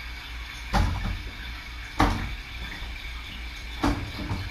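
Three short bumps spread over a few seconds, over a steady low hum.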